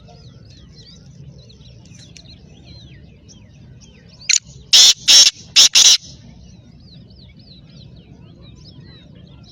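A black francolin calls: a loud, harsh series of five grating notes, about four seconds in, all within under two seconds. Faint chirping of small birds runs underneath.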